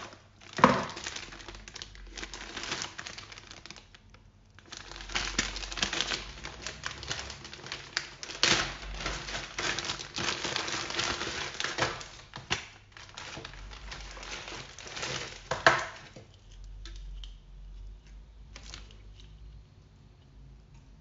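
Clear plastic packaging bag crinkling and rustling in the hands as it is opened and a coiled cable is taken out, with a few sharp crackles. The crinkling pauses briefly a few seconds in and stops about three-quarters through, leaving light handling noise and a single click.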